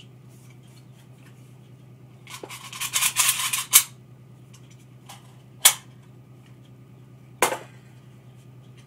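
Metal parts of an AR-15 20-round magazine rattling and clicking as it is handled, for about a second and a half, ending on a sharp snap. Two more sharp snaps follow about two seconds apart as its spring-loaded parts are worked.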